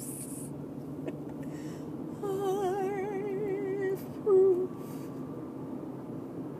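A woman humming one long note with a wide vibrato for about two seconds, then a brief louder second note, over a faint steady background noise.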